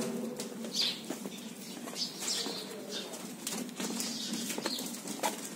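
Goat-shed ambience: scattered light knocks and shuffling, with a few short high chirps and a faint steady low hum.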